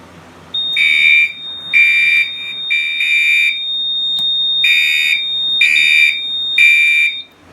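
Gentex SHG fire alarm horn strobe sounding the temporal-three evacuation pattern: three short blasts, a pause, then three more. A thin steady high whine runs underneath. The system is in alarm because the manual pull station has just been pulled.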